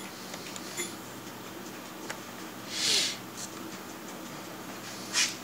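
A person sniffing sharply about three seconds in, with another short breathy sniff near the end, over a steady low hum. A few faint clicks come from the laptop's touchpad buttons as the update prompt is clicked.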